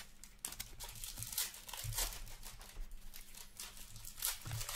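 A torn-open hockey card pack wrapper crinkling in the hands as the cards are pulled out and flipped through, making irregular crackles and rustles.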